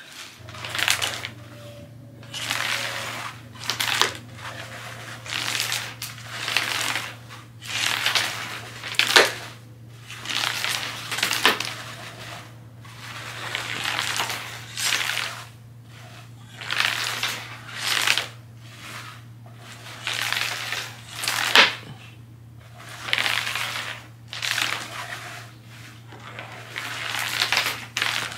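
Repeated scratchy rustling, a burst every second or two, from a cat rubbing and moving against the plastic artificial grass of a wave-shaped cat scratcher.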